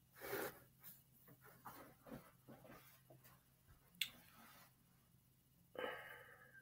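Faint rustling and light clicks of oracle cards being handled, with a sharp tap about four seconds in and a brief rustle near the end.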